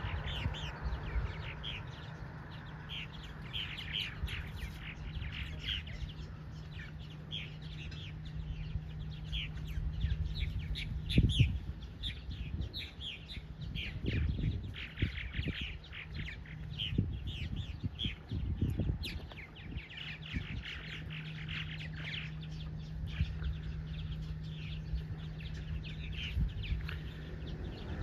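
Small birds chirping rapidly and continually over a steady low hum. A few low thumps and rumbles come in the middle, the loudest about eleven seconds in.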